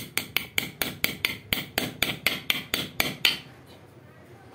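Quick, even hammer taps driving a new greased bearing into an electric fan's motor, about four to five strikes a second, stopping a little after three seconds in.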